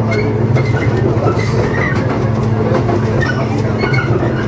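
JR East 115 series electric train heard from the cab while running, with a steady low hum and scattered wheel clicks and clacks over rail joints and points. A brief high hiss comes about a second and a half in.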